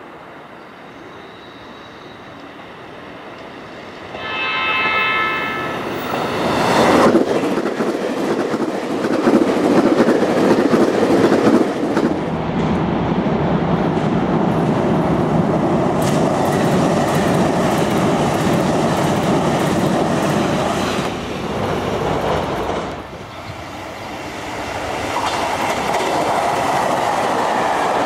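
JR Kyushu 883 series 'Sonic' electric express train sounding a horn for about two and a half seconds as it approaches, then running past at speed with loud wheel-on-rail rumble and clatter. The sound drops briefly near the end and rises again as another 883 series train passes.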